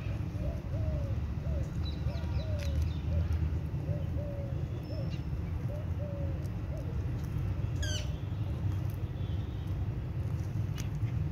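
A bird calling in short repeated notes, two or three a second, fading out about halfway, over a steady low rumble. A few sharp clicks, the clearest soon after the calls stop.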